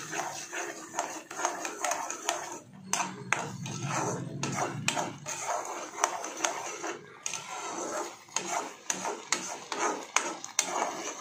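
Slotted spatula stirring thick carrot halwa in a pan, scraping and knocking against the pan with frequent irregular clicks.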